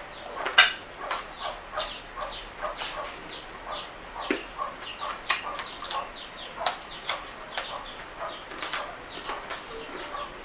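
Close-miked mukbang eating sounds: a person chewing fried chicken with open-mouthed lip smacks and wet mouth clicks, irregular, two or three a second, the sharpest about half a second in.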